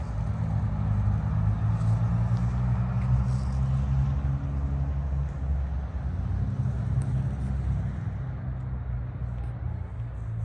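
Steady low rumble of a running motor, easing off a little toward the end.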